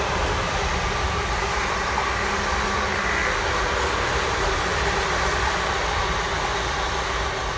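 South Western Railway passenger train passing, a steady rumble and rush of its wheels on the rails.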